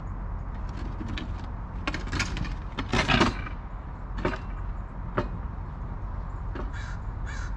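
A few knocks and a short clatter over a steady low rumble, the loudest clatter about three seconds in. A crow begins cawing near the end.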